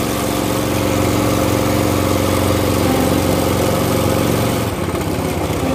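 Motor of a long wooden river boat running steadily under way. About three-quarters of the way in it drops to a lower, more pulsing beat as the engine slows.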